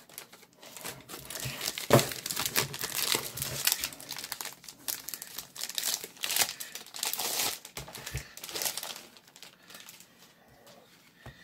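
Clear plastic bag crinkling and rustling in irregular crackles as a stack of comic books is worked out of it by hand, with one sharp knock about two seconds in. It dies down near the end.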